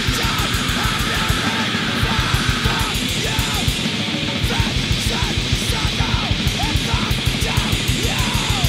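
Loud, fast heavy rock music with electric guitar over rapid, even drumming.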